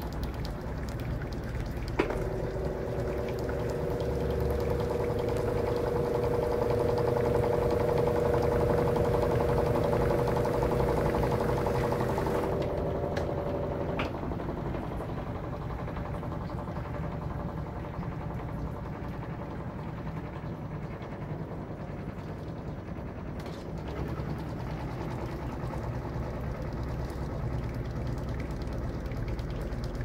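Electrolux LM13Q top-load washing machine running with its basket spinning. After a click about two seconds in, a steady whine sounds over the running noise and stops about halfway through, leaving the plainer running sound.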